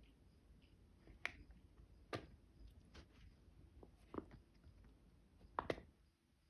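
Silicone pop-it fidget toy giving short sharp pops as a cat's nose and mouth press on its bubbles: about six separate clicks a second or so apart, the last two close together and loudest, over a near-silent background.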